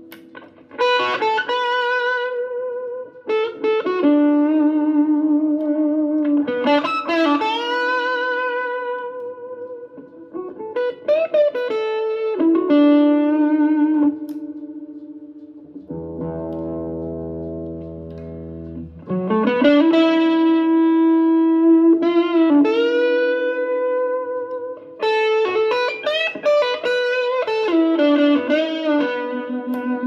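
Les Paul-style electric guitar played through an amp: single-note lead lines with sustained notes, string bends and vibrato. About halfway through the notes stop for about three seconds and a steady low buzz takes their place.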